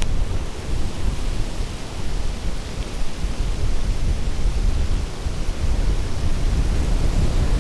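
Strong wind buffeting the microphone: a steady low rumble with a hiss over it.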